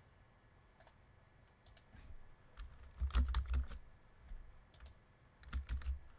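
Computer keyboard typing: short runs of keystrokes, the densest burst about three seconds in and another near the end.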